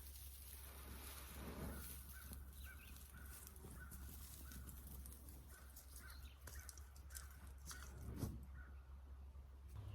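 Crows cawing faintly and repeatedly in the background, with a couple of duller low rustles.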